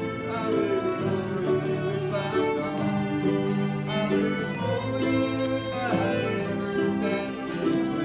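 Traditional folk ensemble of fiddle, accordion, banjo, tin whistle and flute playing a slow country-folk song together, with held notes over a changing bass line.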